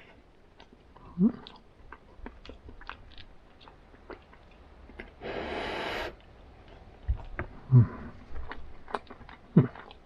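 A person chewing a mouthful of hot skillet food, with small clicks from mouth and fork throughout, a few short low hums, and one puff of breath about five seconds in.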